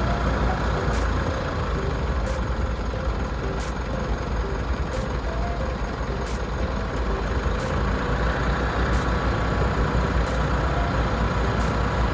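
Vehicle engine and driving noise, a steady low rumble.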